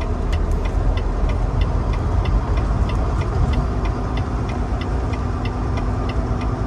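Semi truck's diesel engine running, heard from inside the cab as a steady low rumble, with a light ticking about three times a second on top.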